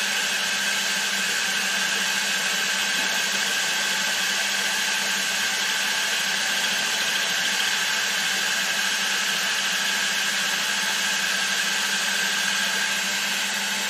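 Milling machine spindle running steadily with a 10 mm cutter, a constant machine hum with no change in speed.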